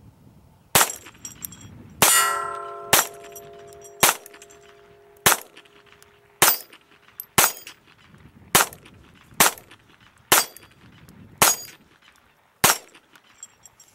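Smith & Wesson M&P 22 pistol firing .22 rimfire, twelve shots at about one a second, with the clang of hits on steel targets. The second shot's hit rings on for a couple of seconds.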